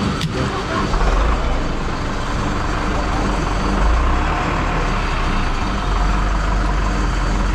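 Petrol dispenser running as fuel flows through the nozzle into a scooter's tank, a steady rushing noise over a low rumble that swells and eases, with one sharp click just at the start.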